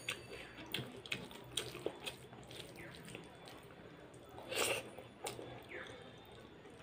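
Wet squelching and clicking of rice and boiled dal being mixed by hand and eaten from the plate, with a louder wet mouthful sound about two-thirds through as a handful goes into the mouth.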